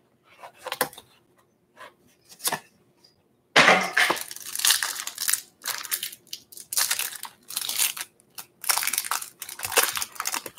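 Clear plastic wrapper around a stack of trading cards crinkling and tearing as it is opened. A few light cardboard-box handling sounds come first, then a run of loud, irregular crinkling from about three and a half seconds in.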